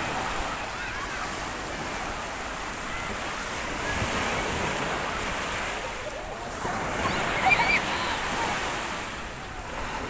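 Ocean waves breaking and washing, a continuous rush that swells about four seconds in and again around seven to eight seconds.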